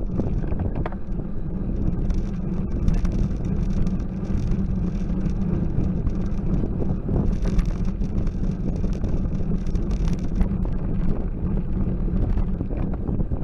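Wind buffeting the microphone of a camera on a moving bicycle, a steady low rumble mixed with tyre noise on the tarmac. Scattered small clicks and knocks come from the bike.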